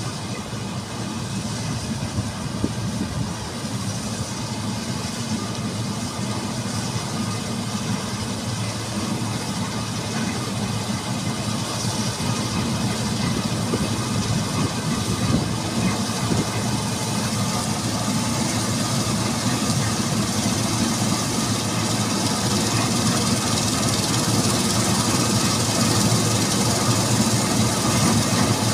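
Claas combine harvester running as it cuts standing grain: a steady engine and machinery drone that grows steadily louder as the combine approaches.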